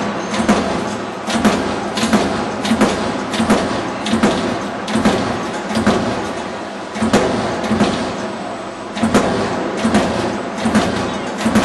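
CNC turret punch press punching a run of holes in a sheet-metal plate, a sharp metallic punch stroke about twice a second over the steady running noise of the machine.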